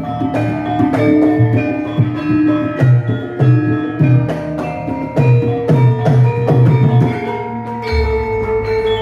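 Javanese gamelan ensemble playing a gending: bronze keyed metallophones and gongs ringing held notes over drum strokes that bend in pitch. About a second before the end the bending drum strokes stop and deep, low beats start under a long held note.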